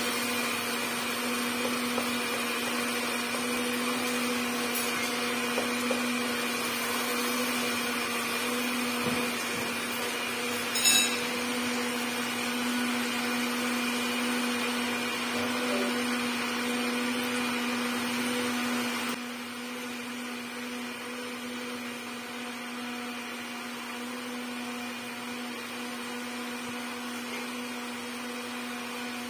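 Steady hum of a small motor with a hiss over it, dropping to a lower level about two-thirds of the way through. A single sharp clink about a third of the way in.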